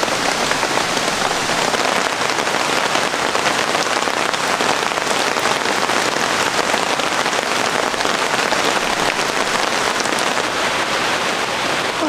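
Heavy rain falling steadily, a dense even patter of many drops.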